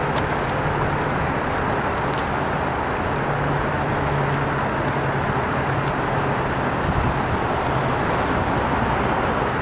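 Wind noise on the microphone over steady road traffic, with a low engine hum underneath.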